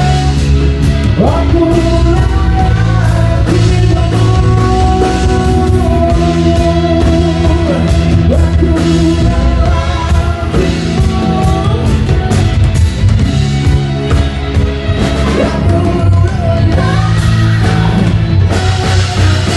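Loud rock music from a full band: steady bass and drums under a sustained, bending lead melody.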